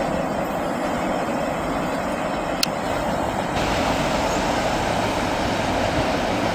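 A long mixed freight train's cars rolling along the track, a steady rumble of steel wheels on rail, with one short click about two and a half seconds in.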